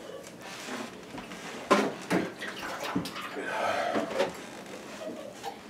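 Kitchen tap running into a sink, water splashing steadily, with a few sharp knocks and clinks.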